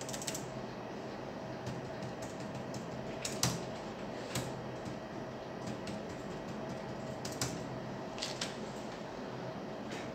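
HP laptop keyboard being tapped: a few scattered, separate key clicks over a steady background hum.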